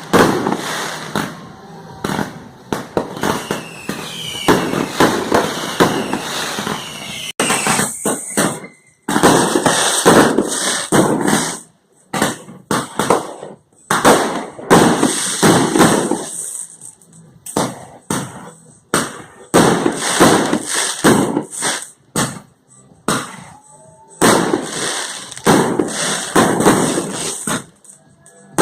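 Fireworks going off in rapid volleys of bursts and crackling, with short gaps between salvos and whistling glides a few seconds in.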